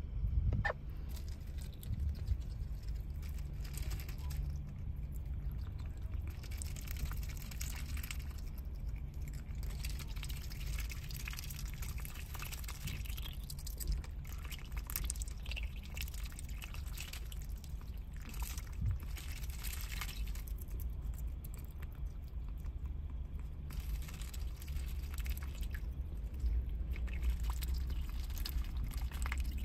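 A call duck dabbling its bill in a paper cup of ice water and drinking, with small splashes, drips and scattered clicks, over a steady low hum.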